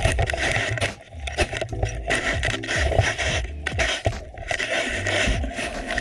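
Underwater noise picked up by a submerged camera: scraping and crackling with many sharp clicks over a low rumble.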